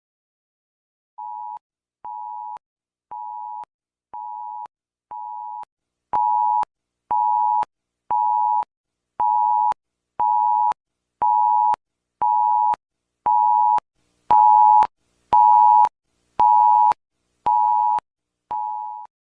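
Emergency alert alarm tone: a short, steady beep repeated about once a second, eighteen times, the first five quieter and the rest louder.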